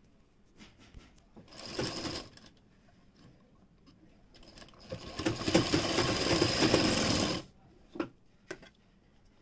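Sewing machine stitching a pocket seam onto a kurti, running in a short burst about two seconds in and a longer run of about two and a half seconds from about five seconds in. The seam is stitched twice, a double row that makes it secure. Two brief clicks come near the end.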